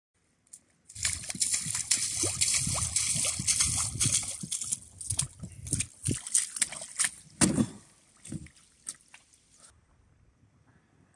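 Rubber boots squelching and splashing through wet mud and shallow water. The steps start about a second in, come thick at first, then fall into separate footfalls that die away about eight seconds in.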